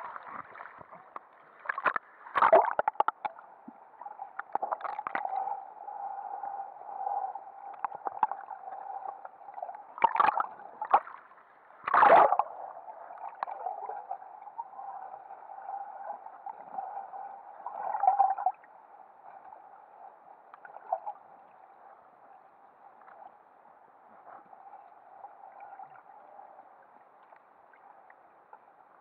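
Underwater sound picked up by an action camera in a waterproof housing: water gurgling and sloshing over a steady hum, broken by sharp knocks and splashes, the loudest about twelve seconds in. It grows quieter after about eighteen seconds.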